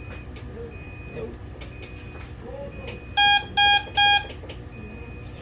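Hospital bedside monitor alarm: a high beep repeating about twice a second, and about three seconds in a louder group of three beeps. It goes with the patient's finger pulse-oximeter sensor being off.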